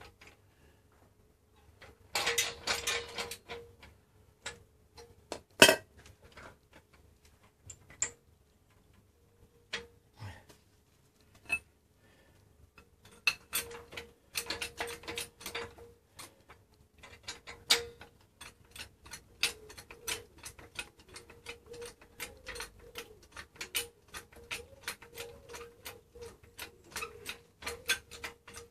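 Irregular metallic clicks and clatter from a trolley jack being handled and its handle fitted: a dense flurry of clicks about two seconds in, a single sharp knock a few seconds later, then quick clicking through the second half, over a faint steady hum.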